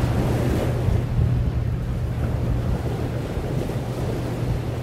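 Steady low drone of a high-speed catamaran ferry's engines with the rushing wash of its wake, heard through wind noise on the microphone.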